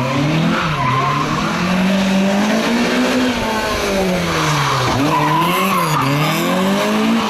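A car engine driven hard, its revs climbing and dropping several times as the driver accelerates between cones and lifts off for the turns. The tyres squeal and scrub through the tight turns.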